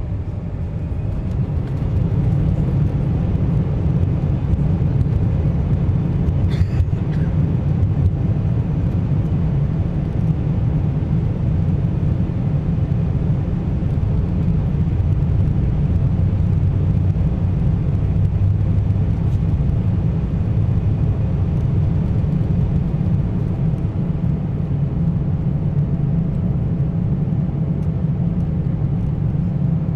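Embraer E175's twin CF34 turbofans heard from inside the cabin at takeoff power, a deep steady roar with runway rumble during the takeoff roll, building over the first couple of seconds and then holding.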